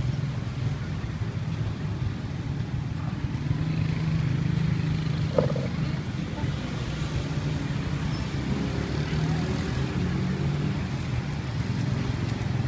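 Street ambience dominated by a steady low engine hum of traffic, with one sharp click about five seconds in.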